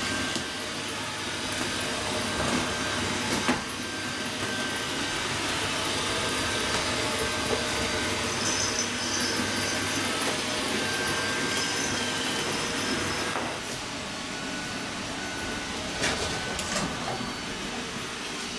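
Robot vacuum cleaner running: a steady whirring hum with a sharp knock about three and a half seconds in.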